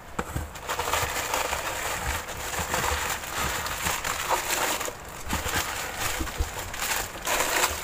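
Cardboard box being shifted and plastic grocery packaging rustling and crinkling as it is unpacked by hand, a steady irregular crackle with a brief lull about five seconds in.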